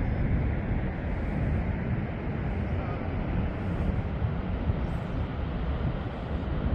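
Steady roar of Niagara Falls: a constant deep rush of falling water.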